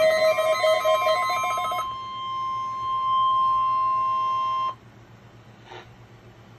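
The NOAA Weather Radio 1050 Hz warning alarm tone, sounding for its weekly test through a Midland weather alert radio, with the radio's own warbling electronic alarm over it for the first couple of seconds. The steady tone then continues alone and cuts off abruptly nearly five seconds in.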